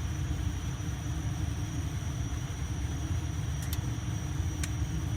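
Steady low rumble and hum of room background noise, with two faint clicks near the end.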